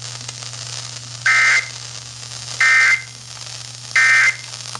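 Emergency Alert System end-of-message code: three short bursts of two-tone digital SAME data about 1.4 seconds apart, the "NNNN" signal that closes the alert.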